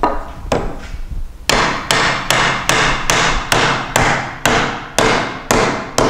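Wooden mallet knocking a wooden rail onto a stool leg to seat the joint. A few lighter knocks come first, then from about a second and a half in a quick run of about a dozen sharp wooden knocks, two to three a second.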